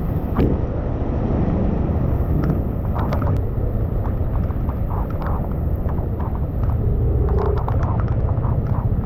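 Heavy rain in street traffic: a steady low vehicle rumble with scattered sharp taps throughout.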